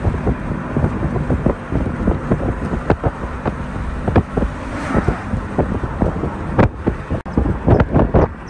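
Low rumble of a vehicle driving on a rough road, with wind buffeting the microphone in many irregular thumps.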